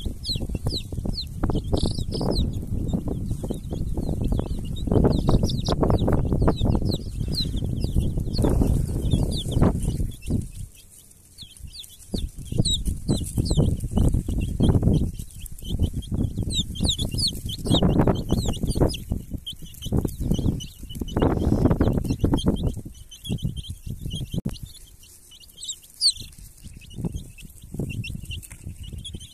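Young chicks peeping, a rapid stream of short high chirps, over bursts of loud low rumbling noise on the microphone that fade briefly about eleven seconds in and thin out near the end.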